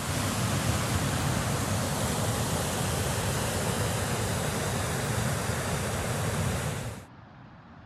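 Steady rush of water from a small waterfall cascading into a pool. About seven seconds in it cuts off sharply to a much fainter stream flowing.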